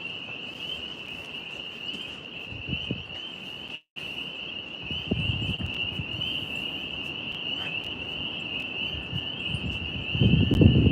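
A steady, unbroken high trill of crickets in chorus, with wind buffeting the microphone as low rumbling gusts that grow stronger near the end. The audio cuts out completely for a moment about four seconds in.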